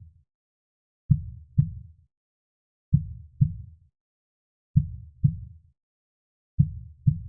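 Slow heartbeat sound: low double thumps (lub-dub), one pair about every two seconds, each thump fading fast, with silence between the pairs.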